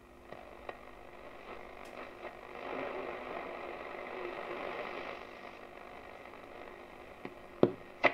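Schaub-Lorenz Goldy 58 valve radio on shortwave, hissing static from its loudspeaker while being tuned across the band. The hiss swells a few seconds in and dies back, and two sharp clicks come near the end.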